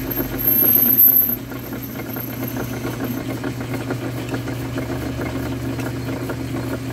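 Metal lathe running with its spindle turning a metal workpiece; a cut finishes about a second in, then the machine runs on with a steady hum.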